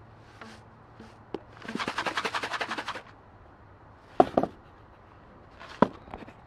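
Rubber bands stretched over the open end of a cardboard canister, set going in a fast rattling run of about a dozen clicks a second for over a second. Then come sharp knocks, two about four seconds in and one more near the end.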